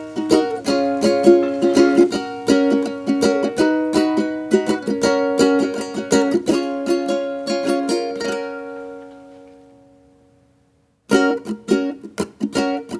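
Background ukulele music: a bright plucked tune whose last chord rings out and fades to silence about eight to ten seconds in, then the music starts up again about a second later.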